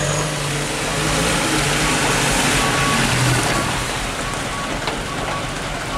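Diesel engine of a light dump truck working through deep mud, growing louder in the middle and then easing off, over the churn of tyres in wet mud. A reversing beeper beeps intermittently.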